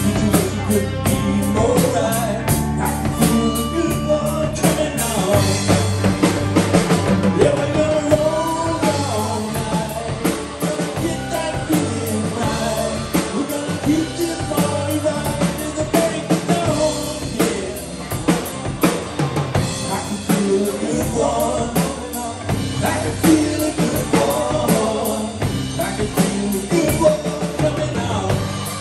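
Live rock band playing: lead vocals over electric guitars, bass guitar and a drum kit keeping a steady beat.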